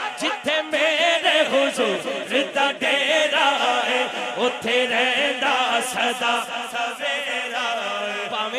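Men's voices chanting together in Sufi zikr, a lead singer on a microphone with a gathering joining in.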